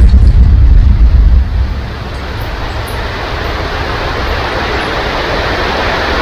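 Thunder rumbling low and loud, dying away about a second and a half in, over steady rain that keeps falling and builds slightly louder.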